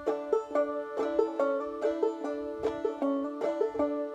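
Five-string banjo played clawhammer style in double D tuning (double C capoed at the 2nd fret), repeating the 'taters' lead-in: a 4th-to-5th-fret slide on the third string, struck by the index finger, against the open drone strings. A quick, even run of plucked notes.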